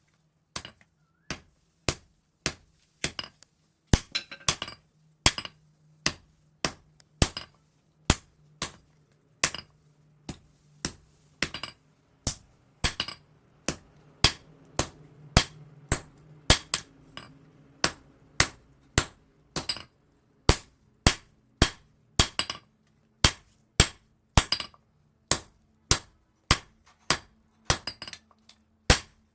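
Blacksmith's hammer striking leaf-spring steel on an anvil, forging it toward a knife blade: a steady rhythm of about two ringing blows a second.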